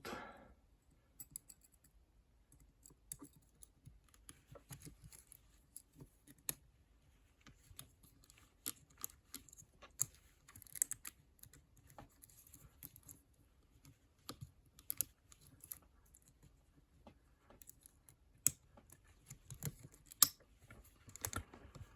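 Irregular faint metallic clicks and light scrapes of a wire pick working inside a four-lever ERA padlock, trying to throw the bolt, with a sharper click about 20 seconds in. The attempt ends with the levers locked back up.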